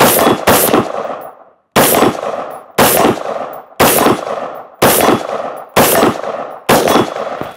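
Daniel Defense MK18 pistol, a short-barrelled 5.56 AR-15, firing about nine semi-automatic shots at a steady pace of roughly one a second, each a sharp crack with a short ringing tail. Every round cycles normally, with no malfunction.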